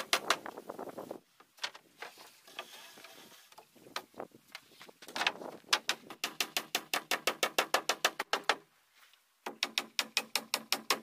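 Hammer driving nails into wooden wall-cladding boards: runs of quick, ringing strikes, about five or six a second, with a pause of a few seconds after the first run and a few scattered blows.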